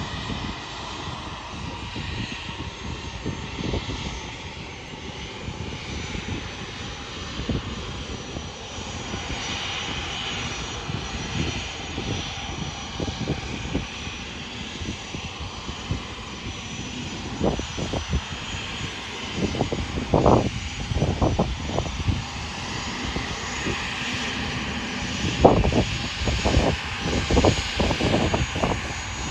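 Three-engined business jet taxiing, its engines giving a steady jet hiss and whine. Irregular low rumbling thumps come and go, heaviest in the second half.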